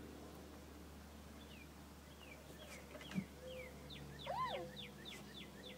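A songbird singing a run of quick, down-slurred whistled notes that begin about a second and a half in and come about four a second near the end. A single sharp tap about three seconds in, and a brief rising-and-falling vocal sound just after four seconds.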